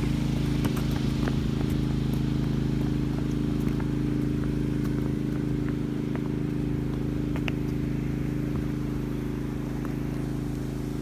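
A water pump running steadily with an even hum, pumping water out of a pond through a long discharge hose.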